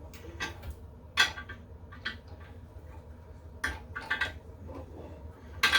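Porcelain toilet tank being set down onto the bowl with its bolts lined up through the holes: scattered hard clinks and knocks, one loud about a second in and more toward the end.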